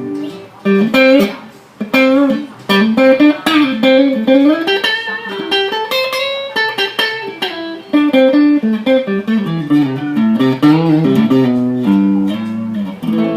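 Fender Squier electric guitar playing a single-note melody: picked notes with string bends and vibrato.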